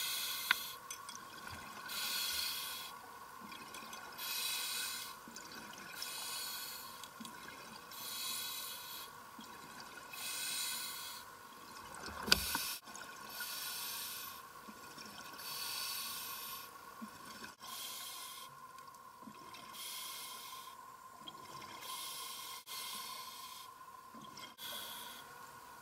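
A scuba diver breathing through a regulator underwater: a hissing rush of exhaled bubbles about every two to three seconds, over a faint steady hum. One sharp knock about halfway through.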